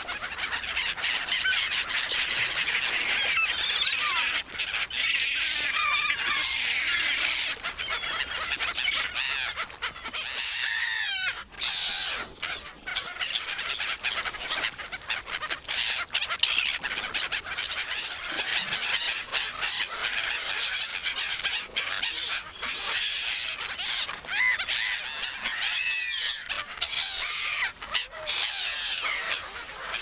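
A flock of black-headed gulls calling constantly in overlapping, squealing cries while they squabble over scraps of bread.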